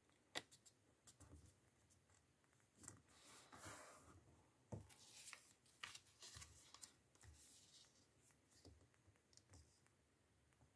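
Faint rustling and crinkling of origami paper being folded and creased by hand, with scattered soft taps and clicks, the sharpest one about half a second in.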